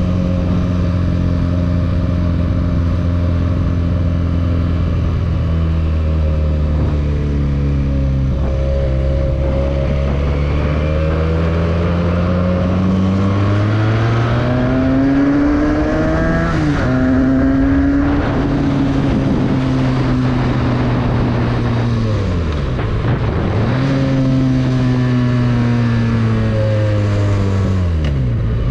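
Benelli 302S parallel-twin motorcycle engine under way, its revs holding, then rising and falling. There are a few quick drops and recoveries in pitch, late on, as the throttle is closed and reopened through gear changes.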